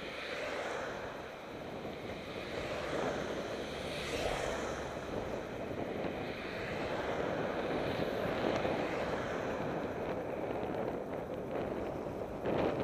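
Wind rushing over the action camera's microphone on a fast downhill run at about 43 mph, a steady rush that gets gradually louder.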